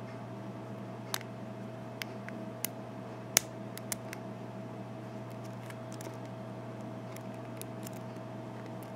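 Small, irregular metallic clicks and ticks of a lock pick and tension tool working the pins of an American 5200 series padlock cylinder, the sharpest about three and a half seconds in, over a steady low hum.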